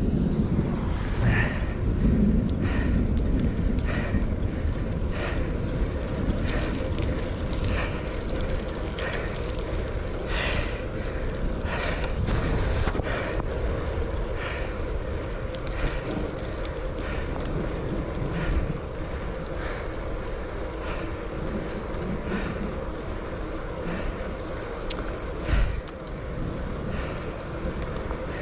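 Wind buffeting the microphone on a moving bicycle in the rain, over the wet rush of tyres and spray. A short higher sound repeats about once every second and a half, and there is one thump near the end.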